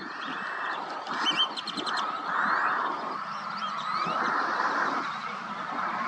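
Waterfowl calling, a run of rough duck-like calls one after another, with a small bird's quick high chirps about a second in.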